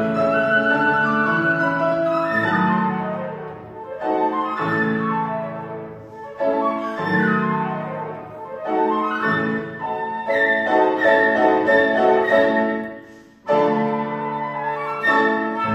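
Flute and piano duo playing a lively classical piece, the flute carrying the melody over piano chords. Two loud, sharply struck chords near the end close the piece.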